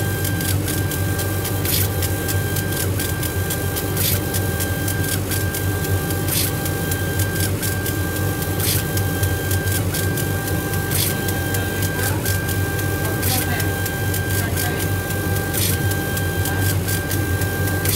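Laser engraving machine running a raster engraving job on a beech wood plate. A steady low hum runs under a whining motor tone that drops out briefly at short regular intervals as the head changes direction. A sharp click comes roughly every two seconds.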